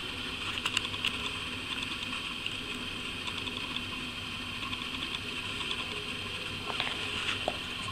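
Light handling noise: a hand touching a paperback book and cable on bedding, with a few soft clicks and taps about a second in and again near the end, over a steady hiss.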